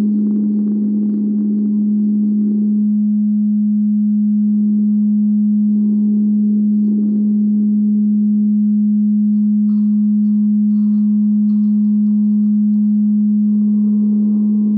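A loud, steady electronic tone at about 200 Hz, like a sine-wave drone, holding one pitch without a break, with faint muffled background sound beneath it.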